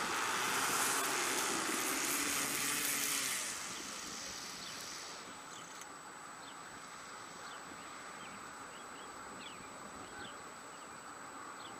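An engine running, loud at first and dying away about three and a half seconds in. Afterwards there is a quieter steady background with a thin high whine and a few short chirps.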